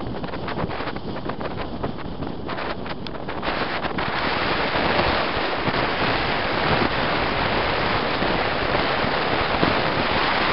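Wind rushing over the microphone of a moving vehicle, mixed with road noise. It gets louder about four seconds in.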